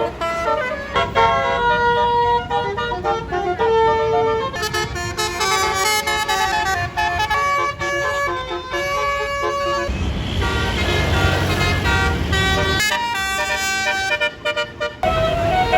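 Multi-note 'basuri' telolet bus horns playing a quick melody of steady tones that jump from pitch to pitch. About ten seconds in, a loud noisy rush with a deep rumble covers the horns for about three seconds, then the horn tune returns.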